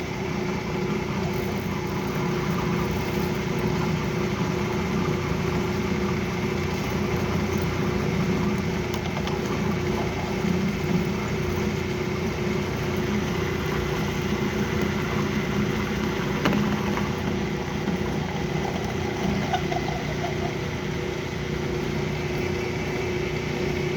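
Metal lathe running steadily with a steady hum while the tool, fed by the compound rest, cuts the spinning workpiece. The cut is not sounding good, a sign of lack of rigidity, a dull tool, or the tool at a bad angle or height.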